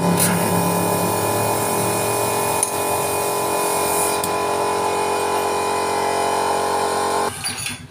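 Pneumatic impact wrench running steadily on the nut at the left side of a Honda Revo FI engine, with a whine and air hiss, then cutting off suddenly near the end.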